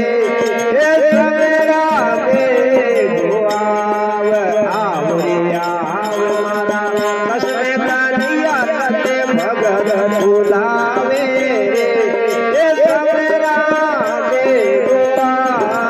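Indian devotional music: a melodic lead that glides between notes, over tabla.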